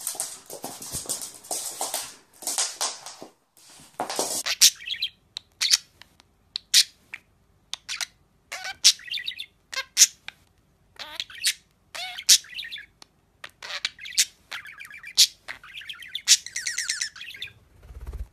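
A budgerigar chirping and chattering: sharp single calls about once a second, mixed with short warbles, and a longer warbling run near the end. Before it, the first few seconds hold noisy scuffling from a dog and a cat play-fighting.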